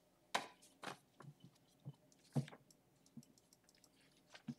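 Faint handling noises at a lectern: about half a dozen scattered soft clicks and knocks with light rustling as papers and items are moved.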